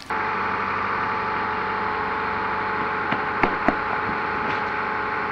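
Car engine idling steadily. A few sharp clicks come a little over three seconds in.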